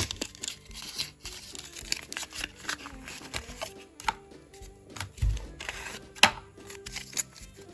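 Handling of a small cardboard trading-card box and a stack of Pokémon cards: papery rustling and crinkling with short sharp clicks and taps as the box flap is opened and the cards are slid out and fanned. Quiet background music plays underneath.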